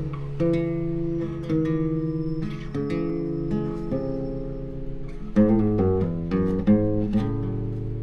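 Acoustic guitar played fingerstyle: plucked chords left to ring, a quicker run of notes a little past halfway, then a chord held ringing near the end.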